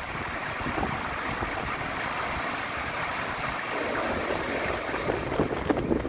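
Stream water rushing steadily over and around rocks in shallow rapids, with low buffeting of wind on the microphone.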